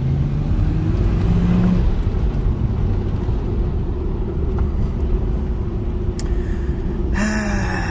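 Audi S4 B5's 2.7-litre twin-turbo V6 heard from inside the cabin, its note rising as the car pulls away over the first couple of seconds, then settling into a steady low drone at low speed.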